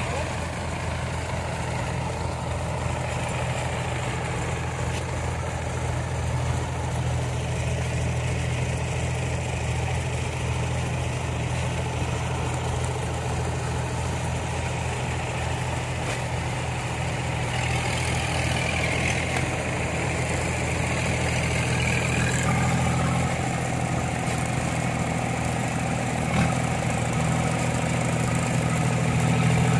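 Engine of a rice-hauling cart idling steadily with a low, even hum.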